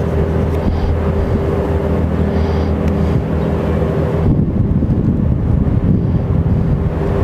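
A steady low engine drone with a few steady tones, with wind buffeting the microphone; about four seconds in the drone gives way to rumbling wind noise.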